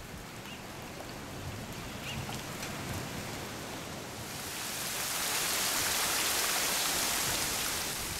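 Rain falling steadily, with a few drops ticking early on, then swelling into a louder, hissier rush for a few seconds from about four seconds in before easing near the end.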